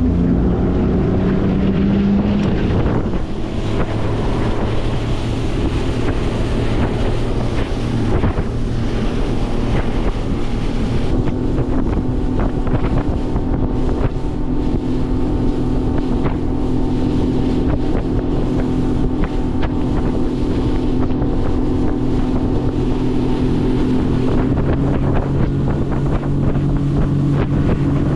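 Highfield Sport 390 RIB's jet-drive engine running under way, its pitch shifting over the first few seconds and then holding steady. Water rushes along the hull and wind buffets the microphone.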